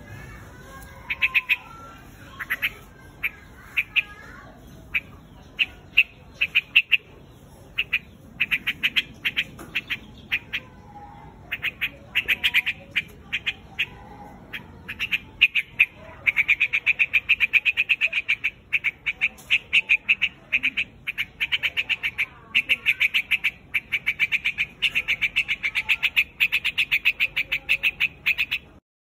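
White-headed quạch mốc bird giving its flock call: runs of short, sharp chattering notes, scattered at first and then in dense rapid runs over the second half.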